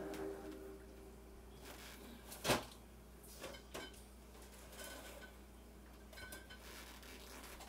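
Containers and jars knocking and clinking as someone rummages through an open refrigerator. There are a few short knocks, with one sharper knock about two and a half seconds in.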